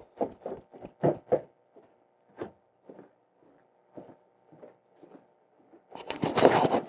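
Footsteps walking across a plywood subfloor, then, about six seconds in, a loud rushing starts: bathtub water draining through a bare ABS drain pipe with no sound-deadening wrap, the racket that uninsulated plastic drain lines make.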